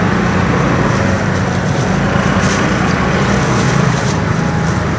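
A motor vehicle engine running steadily close by, a low continuous hum with no breaks.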